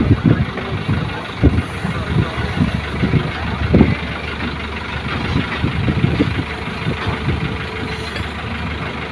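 Heavy diesel engines of a JCB excavator and dump trucks running as the excavator works. Irregular low thumps come in the first few seconds, then the engine sound settles steadier.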